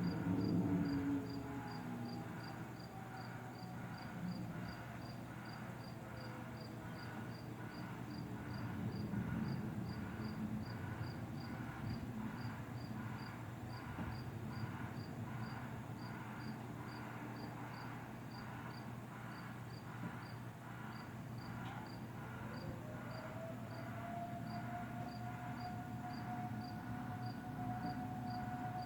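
Distant outdoor warning sirens: one winding down at the start, and another winding up about 22 s in and then holding a steady tone. An insect chirps steadily and high-pitched about twice a second throughout.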